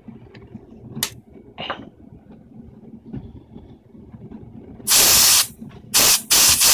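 A few faint knocks, then compressed air hissing out of a Craftsman air compressor's regulated outlet in three short blasts, the last held on. The repaired regulator is now passing output pressure.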